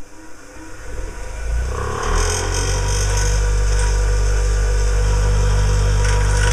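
Bench grinder running up to speed over the first two seconds, then running steadily while the steel threaded shaft of a cut-down drill is held against the wheel, grinding a flat onto the thread.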